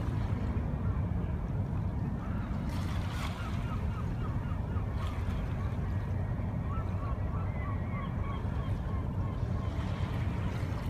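Steady low engine drone from a passing container ship and its assisting tug. Over it a bird calls in two quick runs of short chirps, a couple of seconds in and again past the middle.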